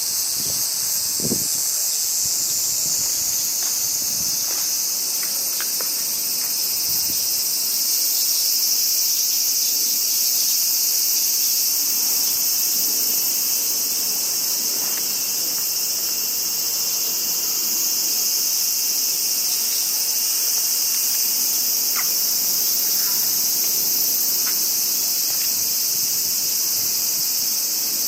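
Dense chorus of crickets, a steady high-pitched trilling that never breaks. A few brief gusts of wind buffet the microphone in the first several seconds.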